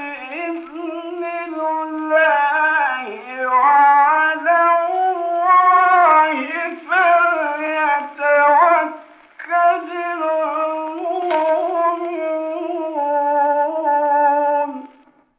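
A male reciter chanting the Qur'an in the melodic, ornamented mujawwad style. The voice holds long, wavering notes, pauses briefly about two-thirds of the way through, then carries on and stops just before the end.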